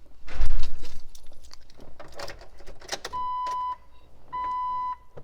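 A loud knock and clattering handling noises, then from about three seconds in a steady electronic beep that repeats about every 1.2 seconds.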